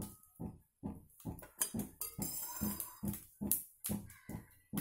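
Cooking oil heating in an aluminium kadhai, crackling with a string of small irregular pops.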